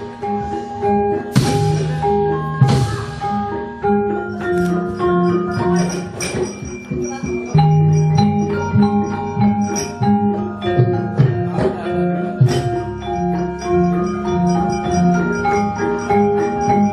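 Javanese gamelan ensemble playing wayang kulit accompaniment: bronze metallophones and gong chimes in a steady melodic pattern, with a few sharp metallic clashes in the first three seconds.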